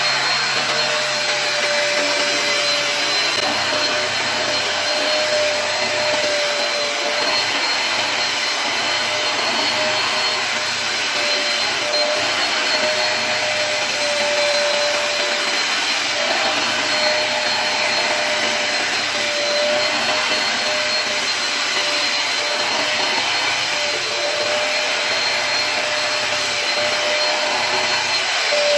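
Upright carpet cleaner running steadily as it is pushed back and forth over a rug, its suction motor giving a continuous rushing sound with a steady whine.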